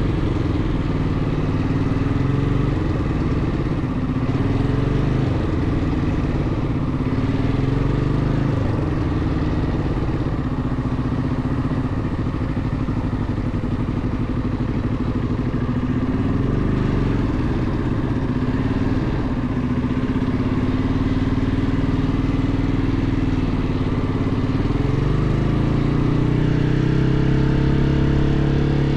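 ATV engine running while being ridden, its pitch rising and falling with the throttle and climbing steadily near the end as it speeds up.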